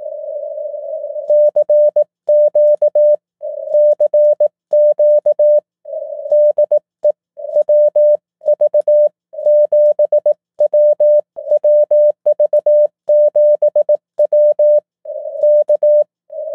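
Morse code CQ call sent in CW on a SunSDR2 DX transceiver, heard as its software sidetone: one steady mid-pitched tone keyed into dits and dahs. It starts about a second in, after soft hiss of band noise through the narrow CW filter.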